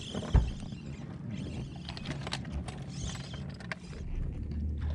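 Handling noise on a bass boat's deck as an angler sets the hook and plays a fish: a sharp knock about a third of a second in, then scattered clicks and taps over a low rumble.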